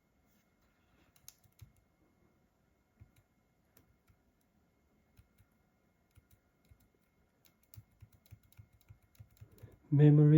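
Faint, scattered clicks of a laptop's keys and trackpad being pressed. The clicks are sparse at first and come more often over the last few seconds.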